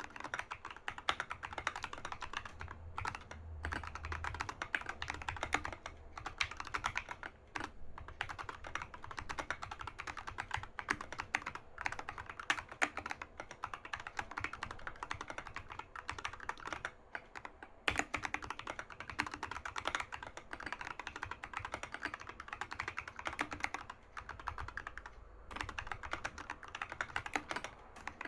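Continuous fast typing on a Keychron K6 mechanical keyboard with Huanuo moon yellow linear switches and Domikey SA-profile keycaps: a dense run of keystroke clacks with a few brief pauses and one sharper, louder stroke about two-thirds of the way through.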